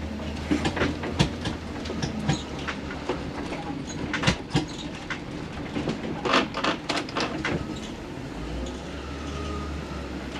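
Inside a Class A motorhome driving over a rough dirt road: fittings and cabinets rattle and knock irregularly over the steady low drone of the engine, with a dense run of sharper clatter about four seconds in and again around six to seven seconds.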